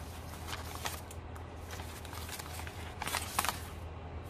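Hand-dyed paper envelopes rustling and crinkling as they are handled, with a louder rustle about three seconds in. A steady low hum runs underneath.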